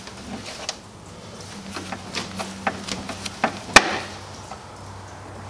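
Screwdriver and copper ground wire clicking and scraping against the metal ground bar of a breaker panel as the wire's terminal screw is tightened. One sharp metallic click a little under four seconds in, with a faint low hum behind.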